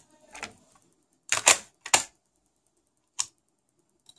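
Plastic and metal clicks and clacks of a cassette being loaded into an open Marantz Superscope CD-330 tape mechanism and its controls being worked: a loud clack about a second and a half in, then single sharp clicks about half a second later and again a second after that.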